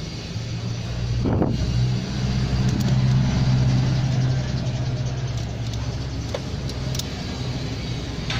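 A motor vehicle engine running with a steady low hum that grows louder about a second in and eases off again after about five seconds.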